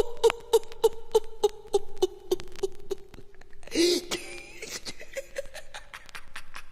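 A high-pitched voice laughing in quick pulses, about three or four a second, with sharp clicks throughout and a louder shrill whoop about four seconds in.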